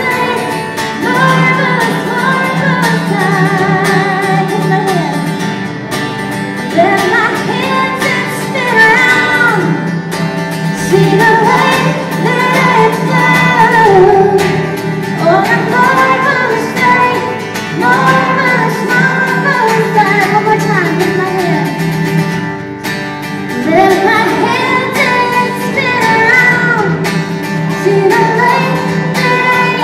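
Live acoustic worship song: a man and a woman singing together, accompanied by an acoustic guitar.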